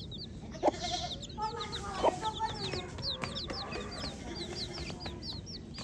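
A group of baby chicks peeping: many rapid, high, overlapping chirps, with lower clucking calls underneath and a couple of sharp clicks.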